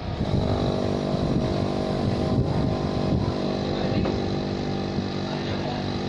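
A motor comes in suddenly at the start and runs on steadily with an even, engine-like hum over a background hiss.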